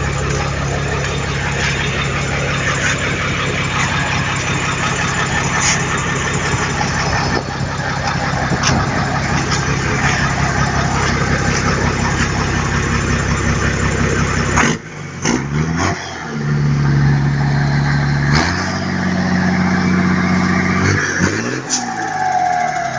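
Mercedes-Benz 1518 truck's OM352A turbo-diesel six running steadily, then dipping suddenly about two-thirds through and revved up in steps. Near the end a whistle falls in pitch as the revs drop: the turbocharger, fitted with a 'pente' comb over its intake to make it sing.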